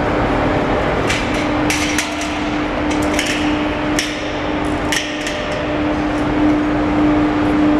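Overhead crane running steadily with a constant hum while it holds a heavy suspended load, with several sharp metallic knocks and clinks between about one and five seconds in.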